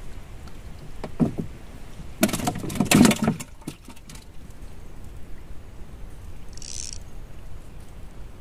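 A cluster of knocks and rattles in a small wooden boat as a line is cast with a long bamboo fishing pole, loudest about two to three seconds in, over a steady background of water noise. A brief high hiss comes near the end.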